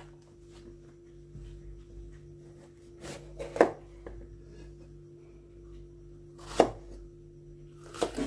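Kitchen knife slicing a red bell pepper on a plastic cutting board: a few sharp knocks of the blade hitting the board, about three seconds in, near seven seconds and again near the end, over a faint steady hum.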